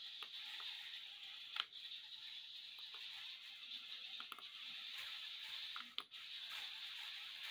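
Faint, steady high whine of the small electric gear motors driving a walking robotic Strandbeest, with a few light clicks.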